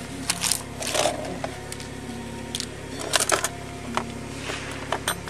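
Papers and a spiral notepad being picked up and handled, giving short rustles and clicks in clusters about a second in, around three seconds in and near the end, over a steady low hum.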